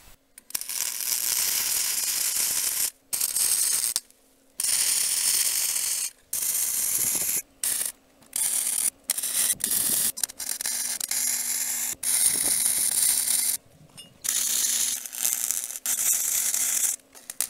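Stick welding: the electric arc crackling and hissing as a steel angle-iron bracket is welded on. It comes in runs of about one to three seconds and breaks off and is struck again about a dozen times, with a faint steady hum under it.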